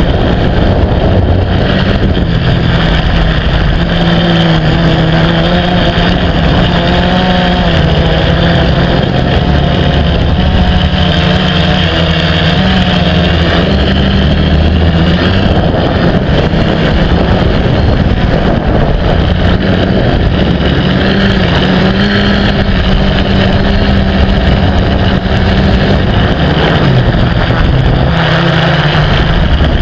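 FPV drone's electric motors and propellers whirring steadily, the pitch rising and falling a little as the throttle changes.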